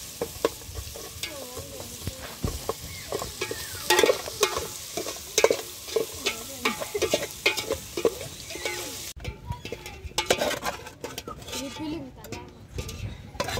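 Metal ladle stirring and scraping fried meat with onions and chili (tibs) in an aluminium pot, the food sizzling with repeated clinks and scrapes of metal on the pot. About nine seconds in the sizzling hiss drops away, leaving only the spoon's scrapes in the pot.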